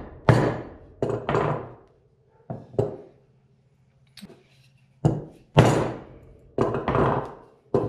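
A hammer striking a block of wood set on a hydraulic cylinder, about ten sharp knocks in uneven runs with a pause near the middle. The blows drive a wiper seal down into its groove in a John Deere 7000 planter's row-marker cylinder.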